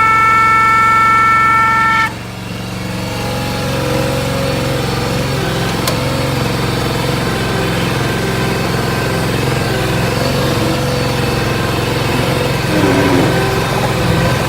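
Skid steer's Honda 20 hp gas engine running, with a loud, steady high squeal that cuts off suddenly about two seconds in; the squeal comes when the bucket is raised or lowered, and the seller puts it down to the hydraulic pump. The engine keeps running steadily after the squeal stops.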